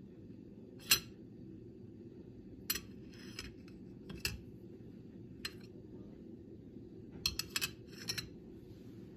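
Sharp clicks and light clinks of kitchenware being handled: a loud one about a second in, scattered ones after, and a quick cluster near the end, over a steady low hum.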